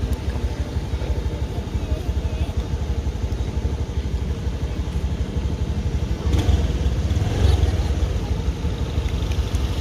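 Road traffic: vehicle engines rumbling steadily as they pass, growing louder about six seconds in, with faint voices.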